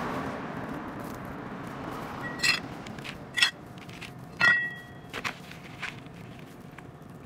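Three sharp knocks of a plastic flowerpot being handled, about a second apart, each ringing briefly, the third the loudest, followed by a few lighter taps. A rushing background noise fades away before them.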